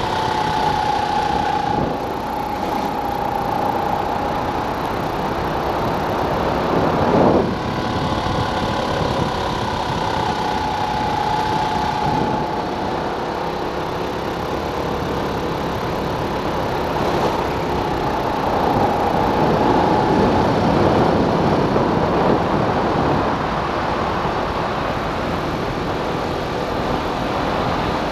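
Racing kart engine running hard, heard from on board the kart, its pitch rising and falling as the throttle is worked through the corners and straights. A brief loud burst comes about seven seconds in.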